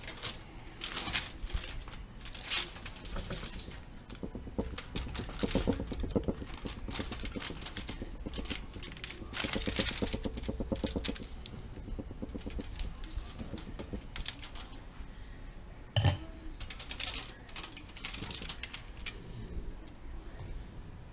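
Aluminium foil crinkling and rustling under hands, with scattered clicks and taps on a plastic cutting board and one sharp knock late on.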